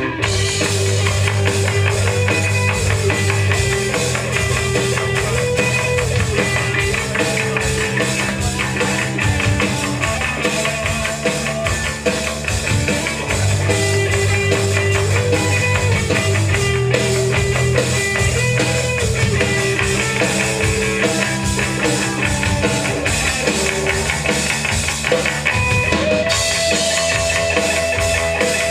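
Live punk rock band playing an instrumental passage on electric guitar, bass guitar and drum kit, with no singing. The top end grows brighter a little before the end.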